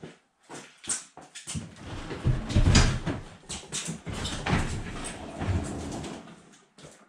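Snowmobile being pushed and dragged by hand across interlocking plastic floor tiles: scraping, squeaks and knocks, loudest with a low rumble two to three seconds in.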